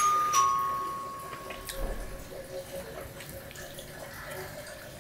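Stainless steel plate clinking twice in quick succession and ringing for about a second and a half as the bread is torn against it, then soft wet eating sounds.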